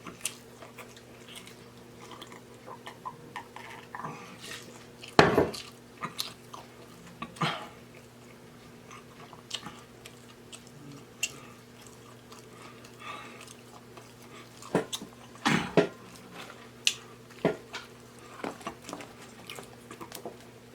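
Close-miked chewing and mouth smacking while eating seafood, with scattered sharper smacks and clicks, the loudest about five seconds in and again around fifteen to sixteen seconds in. A faint steady hum runs underneath.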